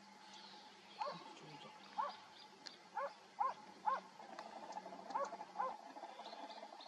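About seven short, faint animal calls in an irregular series, each rising and then falling in pitch, with the last few coming closer together.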